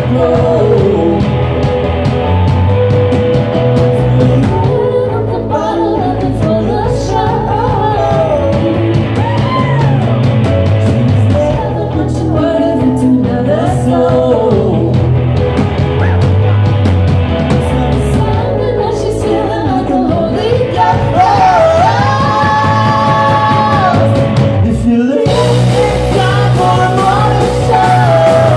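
Live rock band playing: a woman's lead vocal over keyboard, electric guitar, bass guitar and drums. Near the end she holds one long note, the band stops dead for an instant, then comes straight back in.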